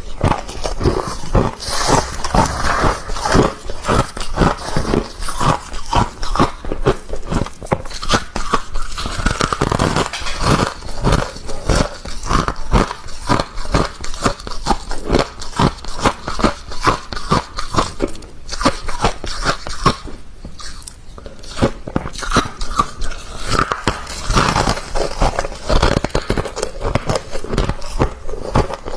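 Close-up biting and chewing of soft, crispy freezer frost: rapid, dense crunching throughout, easing briefly about two-thirds of the way through.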